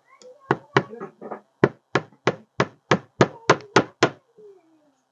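Small hammer tapping a nail into a wooden beehive frame: a quick, even run of about a dozen sharp strikes, roughly three a second, that stops a little after four seconds in.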